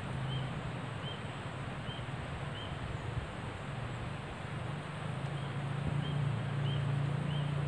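A bird repeating a short high chirp about every two-thirds of a second, in two runs with a pause between them, over a steady low hum that grows louder near the end.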